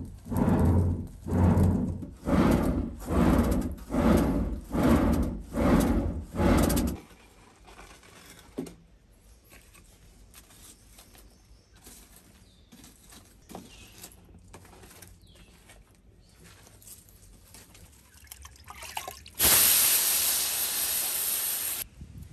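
Foot-pumped clay pot bellows puffing air through a clay tuyere into a charcoal fire: a quick rhythmic whoosh a little more than once a second, stopping after about seven seconds. Near the end, a few seconds of loud rough scraping as a stone is rubbed across a flat stone slab.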